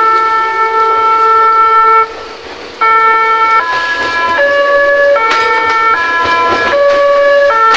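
Meitetsu 7000 series Panorama Car's music horn playing its multi-note melody in held, stepped tones, repeating, with a short break about two seconds in.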